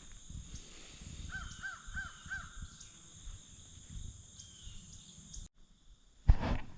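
A crow cawing four times in quick succession over faint low scuffing, followed near the end by one sharp, loud knock.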